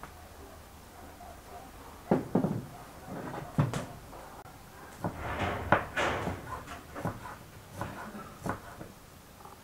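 Kitchen prep sounds: utensils knocking against bowls, then a serrated knife chopping herbs on a wooden cutting board. Single sharp knocks about two and three and a half seconds in, a denser clatter around five to six seconds, then lighter, irregular taps near the end.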